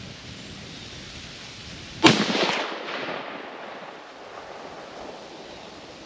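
A single rifle shot about two seconds in, a sharp crack followed by a rolling echo that dies away over about a second, over a steady background of wind noise.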